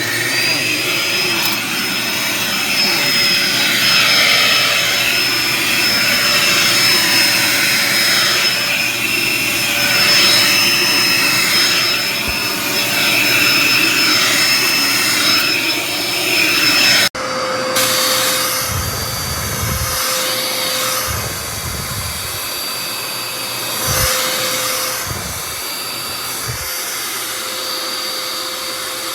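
Dirt Devil Endura Reach bagless upright vacuum cleaner running with a steady high whine. About two-thirds of the way through, the sound cuts abruptly and resumes at a lower pitch, with occasional low bumps.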